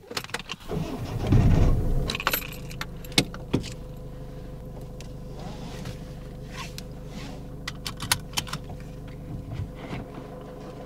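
Keys jangling in scattered light clinks inside a car, over a steady car engine hum that follows a loud low rumble about a second in.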